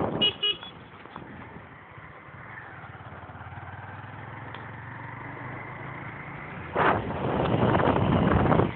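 Motorcycle engine running steadily at low speed, with loud wind rush on the microphone in the first moment and again for the last couple of seconds as speed builds.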